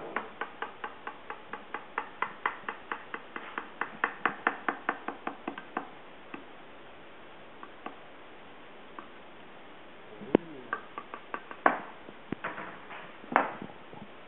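Kitchen knife sawing through a baked eggplant parmigiana in a baking dish, with a slotted spatula alongside: a fast, even clicking of the blade against the dish, about five a second, for the first six seconds. After a pause come scattered lighter clicks and three louder single knocks of utensils on the dish.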